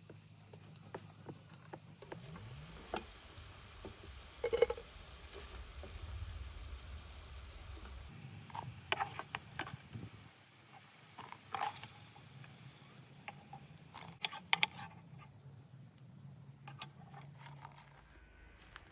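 Metal spoon clinking and scraping against steel cooking pots as diced potatoes are transferred into a pot of water, with scattered sharp clinks over a faint steady hiss.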